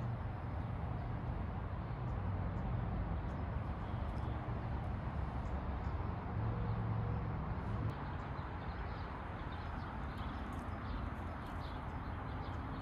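Outdoor background noise: a steady low rumble with faint, scattered bird chirps.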